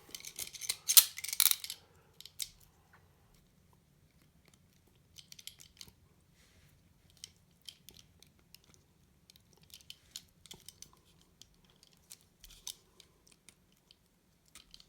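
Thin stainless-steel shim being worked into a handcuff's ratchet: small metallic clicks and scraping, a busy rattle in the first two seconds, then sparse faint ticks and scratches.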